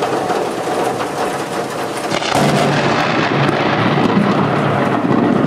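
Thunderstorm: a steady hiss of heavy rain, with a rumble of thunder swelling about two seconds in.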